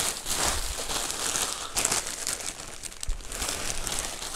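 Plastic mailer bag crinkling and rustling in uneven surges as it is turned over and squeezed in the hands.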